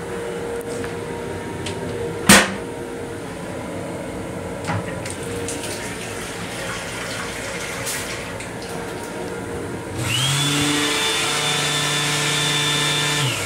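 A sharp click about two seconds in, then a faucet running into a sink over the steady running noise of the train. Near the end a small electric motor in the train restroom starts up with a whine that rises in pitch, runs steadily for about three seconds, and cuts off.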